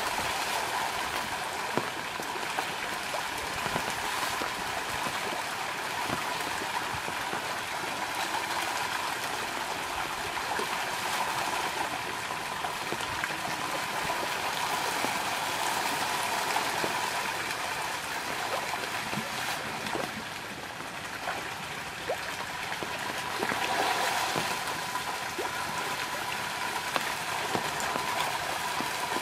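A dense shoal of pangasius catfish thrashing at the pond surface while feeding: continuous churning splashing, dense with small slaps and drips, easing briefly about two-thirds of the way through.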